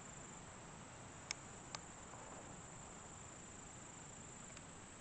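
Faint, steady high-pitched trilling of an evening insect chorus, crickets, with two short clicks about a second and a half in.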